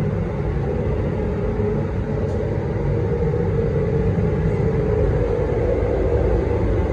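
Steady, loud rumbling noise that runs on unbroken, its weight low in pitch.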